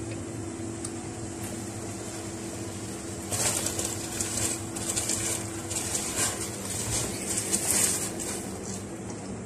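Dry basmati rice poured from a steel plate into a steel pot of water about three seconds in, followed by a hand swishing and splashing it in the water to wash it, in uneven hissy bursts. A steady low hum runs underneath for the first part.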